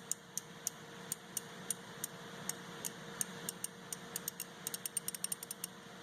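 Stanley Black Chrome 120-tooth, 1/2-inch-drive ratchet clicking as its handle is swung back, the pawl skipping over the fine teeth. A string of light, sharp clicks comes a few per second, then quickens into a rapid run near the end.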